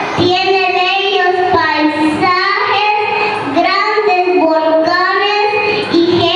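A young girl declaiming a poem into a microphone in a drawn-out, sing-song voice, her phrases long and gliding with short breaks for breath.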